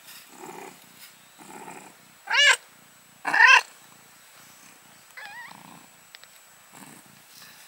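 Cat purring in slow, soft pulses, broken by two loud, high, wavering cat cries about a second apart a couple of seconds in, and a fainter mew a little after five seconds.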